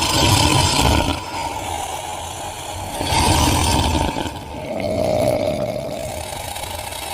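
Horror monster sound effect: a rough, low growl that swells and fades in waves every few seconds, with a drawn-out held tone through the middle.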